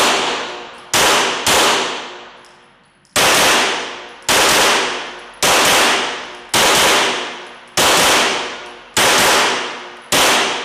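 Steyr L9-A2 MF 9 mm Luger pistol firing about ten shots at roughly one a second, with a quick pair near the start, each shot echoing and fading over about a second.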